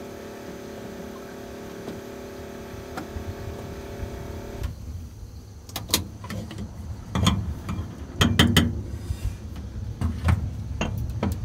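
A vehicle engine running steadily stops abruptly about five seconds in. A run of sharp knocks and clunks follows.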